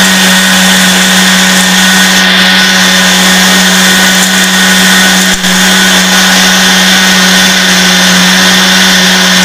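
Miyako countertop blender running at full speed, blending mint lemonade: a loud, steady motor hum with a higher whine over it, which cuts off suddenly at the end.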